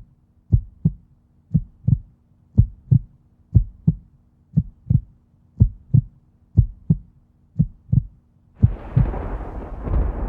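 Heartbeat sound effect: pairs of low thumps about once a second, eight beats in all. Near the end, a loud rumbling swell like thunder takes over.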